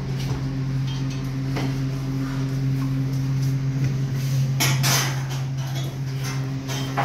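A steady low hum with a few sharp knocks and clatters over it, a cluster of them about four to five seconds in.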